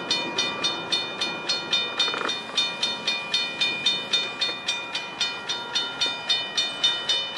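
Railroad grade-crossing bell ringing rapidly, about four strikes a second, as the crossing gates come down; it stops at the end.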